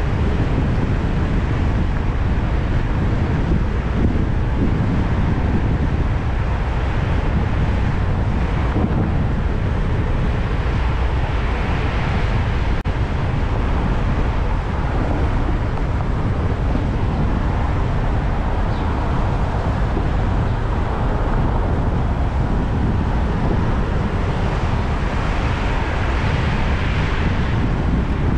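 Steady low rumble of city traffic and wind noise on the microphone. The noise swells twice, about midway and again near the end, as vehicles pass.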